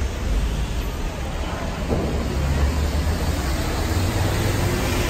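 Steady background noise: a low rumble with a hiss over it, and no distinct event standing out.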